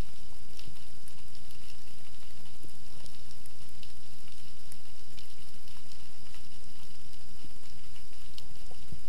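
Underwater ambience heard through an action camera's waterproof housing: a steady muffled hum and hiss, with scattered faint clicks and crackles.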